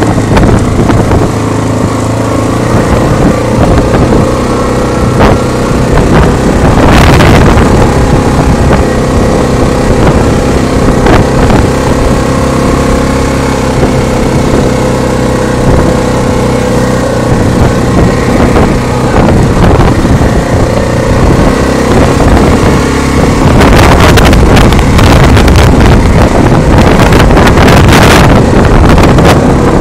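Quad (ATV) engine running steadily as the machine is ridden, very loud, with wind buffeting the phone's microphone. Scattered knocks and rattles cut through, strongest about seven seconds in and over the last several seconds.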